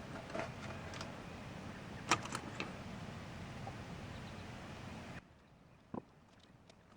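A few light clicks and taps over a steady background hiss. The hiss cuts off abruptly about five seconds in, leaving near silence with one more faint click.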